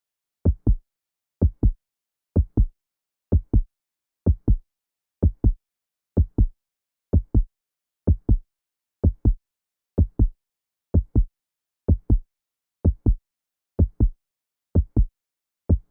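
Heartbeat sound effect: steady paired low thumps, lub-dub, about one beat a second, starting about half a second in.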